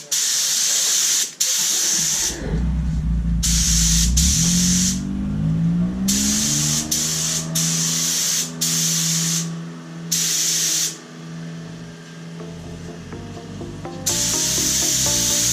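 Paint spraying: a hiss in repeated short bursts, a second or so each, stopping and starting as the paint is laid on in passes. Background music with deep bass comes in about two seconds in.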